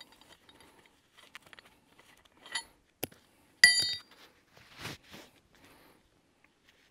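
Steel bow shackle, rated at 4¾ tonnes, clinking as it is handled in gloved hands. A few metallic clicks come in the middle; the loudest, about three and a half seconds in, rings briefly. Soft rustling handling noises come between them.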